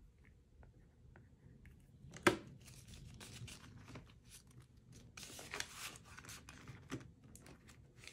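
Paper banknotes and plastic cash envelopes being handled: a sharp click about two seconds in, a longer rasping rustle a little past the middle, and a smaller click near the end.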